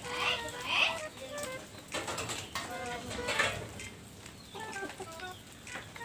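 Chickens clucking, a run of short pitched calls that go on through the whole stretch, loudest about a second in and again about three seconds in.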